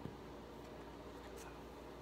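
Faint handling sounds of a skewered hot dog and mozzarella being rolled in flour on a plate: a light tap at the start and a brief soft brushing a little past halfway, over a steady low room hum.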